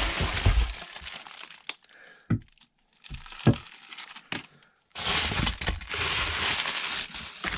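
Rummaging through a box of spare parts: packaging crinkling and rustling, with two short knocks in the middle.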